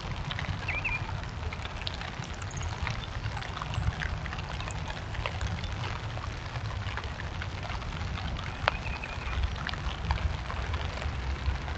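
Outdoor ambience on a trail camera's microphone: a steady low rumble with scattered light ticks and taps, and a faint bird chirp just after the start and again about nine seconds in.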